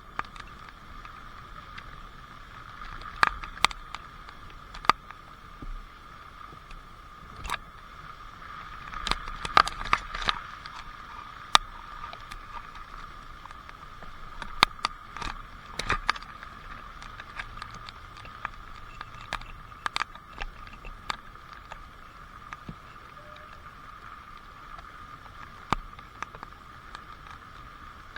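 Rain falling: a steady hiss with irregular sharp taps of water drops striking close by, some of them louder.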